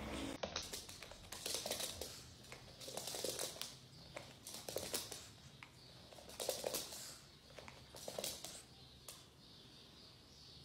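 Faint, intermittent rustling and crinkling with light clicks, in short bursts every second or two.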